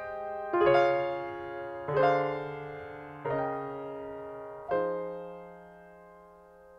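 Background music: a keyboard, piano-like, plays slow sustained chords, struck about every second and a half. Each chord rings and dies away, and the last one fades out near the end.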